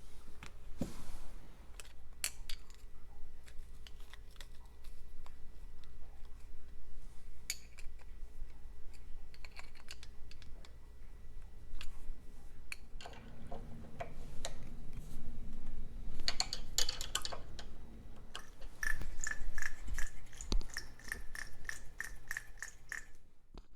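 Small metal parts of a Norton Atlas oil pump clicking and knocking as they are handled on a workbench, with irregular taps and clinks. Near the end there is a quick, even run of clicks, about three or four a second.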